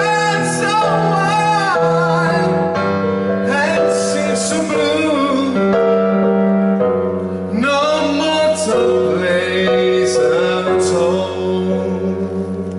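A man singing a slow ballad into a handheld microphone, his voice wavering and swooping in pitch, over keyboard accompaniment of long held chords; a deep bass note comes in about seven seconds in.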